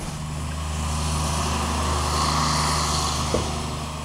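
A car's engine running at steady revs with tyre and wind rush as the car drives past, swelling to its loudest midway and then fading away.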